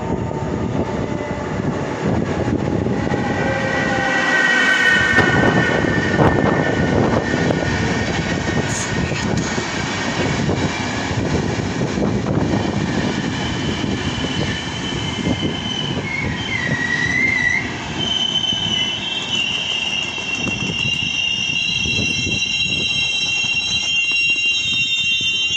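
Passenger express train pulling into the station, its wheels running over the rails with a steady rumble. High squealing tones rise over the rumble as it brakes, growing strongest near the end as the train comes to a stop.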